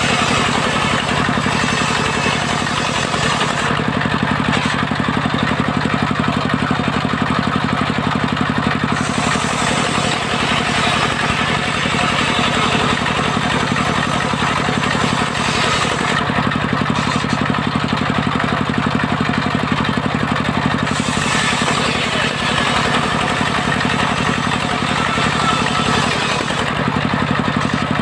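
Large circular saw blade ripping waru (sea hibiscus) wood into rafters and battens on a sawmill table, running steadily over the low drone of its drive. The hiss of the cut brightens and eases back several times as the plank is fed through.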